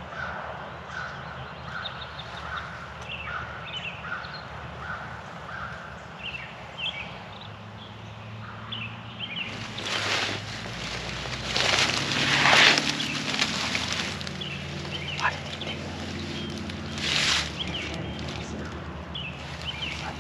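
Small birds chirping in the background. About halfway through, loud rustling starts as a kneeling hunter shifts his body in dry leaves and brush, in camouflage clothing; the loudest burst comes a few seconds later and a shorter one near the end.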